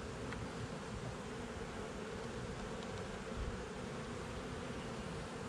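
Honeybees buzzing steadily around an opened hive box, a continuous hum of many bees in flight.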